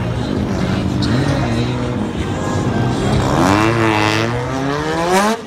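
Drift cars' engines running hard as they slide around the lot. Over the last two seconds one engine's note climbs steeply in pitch, then cuts off abruptly near the end.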